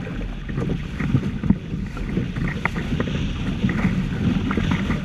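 Wind on the microphone and water rushing and splashing against the hull of a Hobie Tandem Island trimaran under sail, with scattered small splashes and knocks.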